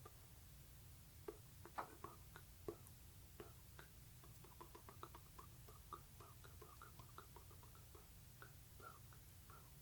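Soft, wet ASMR mouth sounds made close to the microphone: a long run of small lip and tongue clicks, a few louder ones early on, over a low steady hum.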